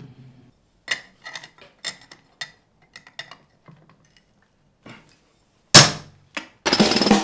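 Light metallic clinks and knocks of angle-grinder cutting discs and parts being handled on a workbench during a disc change, followed by one loud clank just before the sixth second and a smaller knock after it. Rock music starts near the end.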